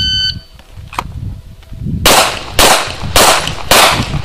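A shot timer's short electronic start beep, then about two seconds later five pistol shots fired in quick succession, about half a second apart.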